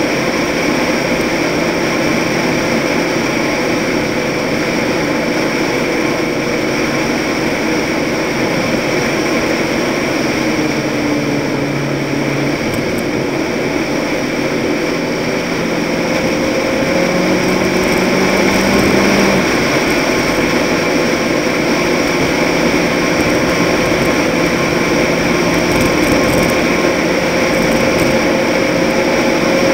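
Toyota pickup truck driving at speed on a country road: a steady rushing noise of wind and tyres on asphalt, with the engine's low pitched note drifting a little up and down.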